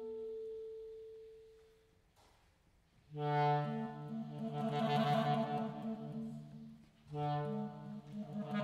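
A clarinet holds a single soft note that fades away. After a short pause, a symphonic wind band with clarinet soloist comes in loud on full, held chords, and enters again about four seconds later.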